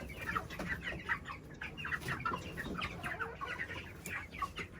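A flock of young chickens calling together: many short, overlapping peeps and clucks, dense and continuous.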